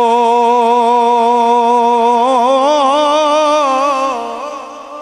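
A man's voice holding one long, loud sung note of Punjabi Sufi kalam into a microphone. The note is steady at first, then breaks into wavering ornamented turns about two seconds in. It ends about four seconds in, with an echo trailing off.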